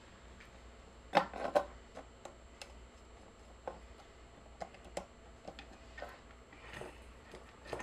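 Light knocks and clicks of parts and wiring being handled inside an opened speaker cabinet: a quick cluster of louder knocks about a second in, then scattered light taps.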